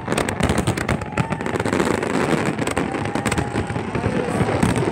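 Fireworks display: many shells and comets bursting at once, a dense unbroken rattle of pops and bangs.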